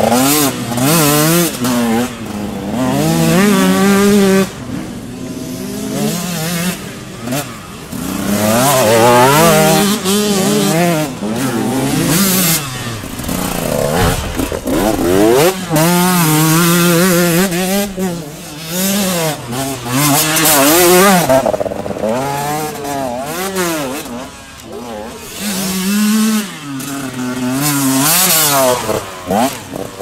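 Enduro dirt bikes riding a dirt course one after another, engines revving up and falling back over and over as they pass.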